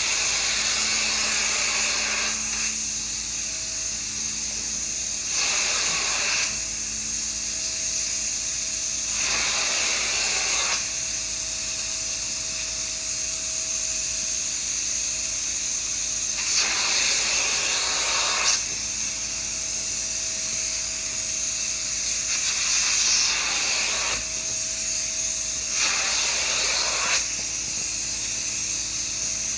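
Hot-water extraction machine running steadily through its hose and handheld upholstery tool, which is drawn in strokes over sofa fabric, with a hissing rush lasting a second or two every few seconds.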